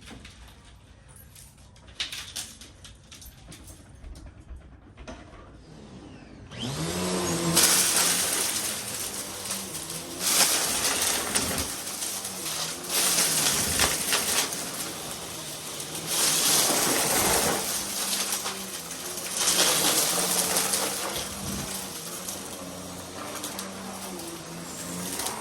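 Vacuum cleaner switched on about six seconds in, its motor spinning up with a rising whine, then running loud while it is pushed back and forth, the sound swelling and easing every few seconds with each stroke. Light handling clicks and knocks come before it starts.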